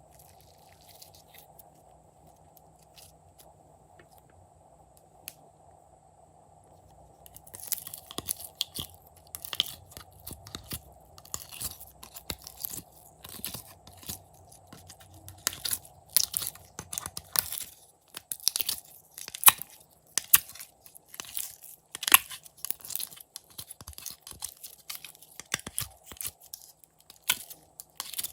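Slime being squished and mixed by hand, giving off dense, irregular sticky clicks and crackling pops. The pops start about seven seconds in, after a quiet stretch with only a faint hum.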